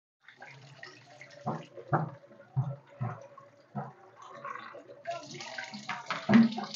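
Kitchen tap water running into a plastic basin of raw groundnuts: a steady splashing hiss that grows louder about five seconds in, with a few knocks from the basin being handled and a louder thump near the end.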